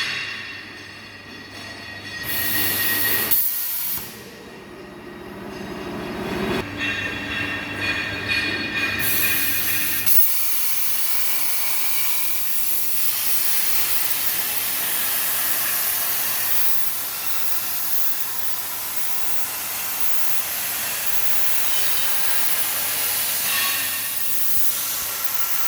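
CNC plasma cutter cutting 12 mm mild steel plate. A steady, wide hiss of the arc and compressed air settles in about ten seconds in. Before that come a few shorter bursts of hiss over a low hum.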